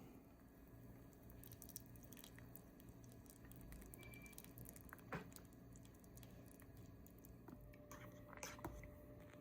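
Near silence: room tone with a faint low hum and a few small clicks and rustles.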